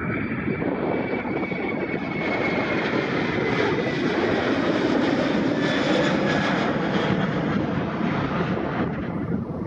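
Airbus A330 twin-engine jet airliner at takeoff power. Its jet roar swells to a peak about halfway through and eases off near the end, with a high whine that slowly falls in pitch.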